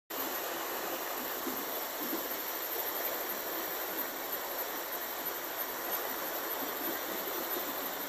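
Shallow stream running over stones: a steady, even sound of flowing water.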